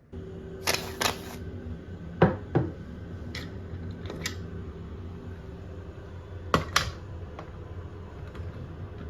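Die-cast Tomica minicars and their plastic case being handled: a scattered series of about eight sharp clicks and clacks, two of them close together near the start and two near the end, over a steady low hum.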